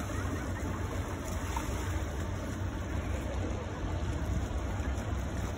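Steady rushing noise of open water and wind, with a low, unsteady rumble underneath.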